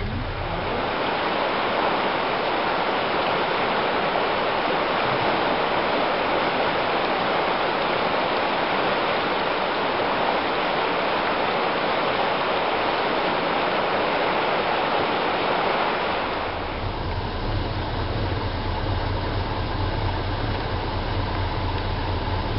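River water rushing steadily over rapids. About 16 seconds in it cuts to a steady low rumble with less water noise.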